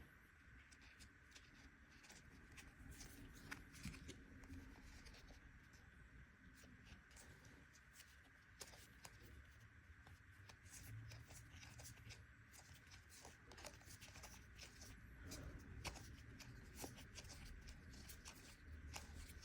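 Faint handling of trading cards: soft slides and small irregular clicks as cards are flicked through one by one over a faint steady hum.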